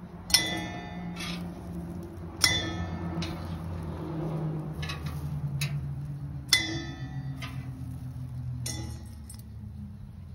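Metal tongs clinking against the steel top of a Blackstone griddle and a stainless steel colander bowl as slices of toast are moved: about four sharp metallic clinks, each with a brief ring, over a steady low hum.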